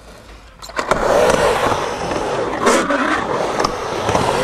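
Skateboard on a halfpipe ramp: a few sharp clacks of the wheels and board hitting the ramp about half a second in, then the wheels rolling across the ramp with a noise whose pitch rises and falls with speed, and a knock near three seconds.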